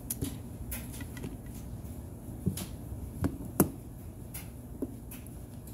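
Metal ice cream scoop working through frozen ice cream in a metal baking pan and dropping scoops into a glass bowl, giving a few scattered clicks and knocks; the loudest comes about three and a half seconds in.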